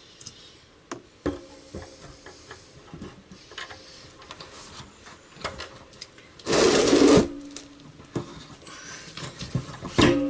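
Plumbing fittings being handled and test fitted: scattered knocks and clinks, several followed by a short metallic ring, and one loud rasping burst lasting under a second about six and a half seconds in.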